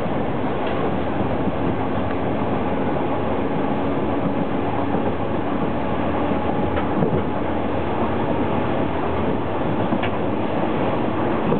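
Alstom Lint 41 diesel railcar running at steady speed, heard from inside the driver's cab: an even running noise of engine and wheels on the rails. A few faint clicks come through.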